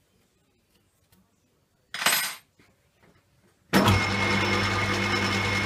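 A brief clatter about two seconds in, then the metal lathe starts and runs at steady speed, its motor humming and the chuck spinning the block on its mandrel, a short spin to check the work is seated and running true.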